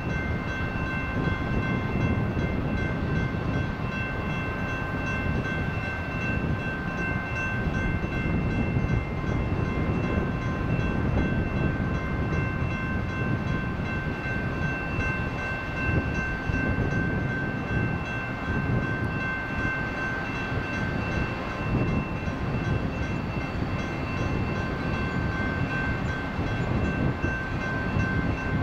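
Railroad grade-crossing bell ringing steadily over the low rumble of a freight train of tank cars rolling past.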